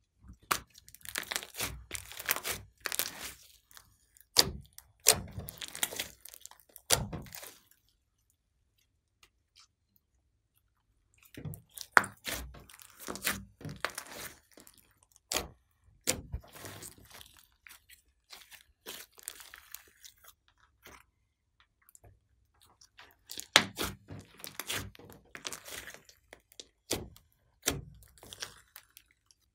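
Hands kneading, folding and pressing glossy slime with clay mixed in: sticky crackling and popping clicks as air pockets burst. They come in three spells separated by short silent pauses.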